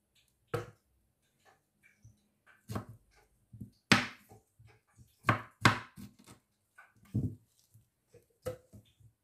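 Knife cutting pineapple on a cutting board: a run of irregular knocks as the blade strikes the board, loudest about four seconds and five and a half seconds in.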